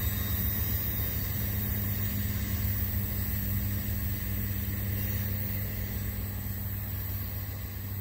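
Amtrak Pennsylvanian passenger train departing under diesel power, a steady low engine drone over a rumble that slowly fades as the train pulls away.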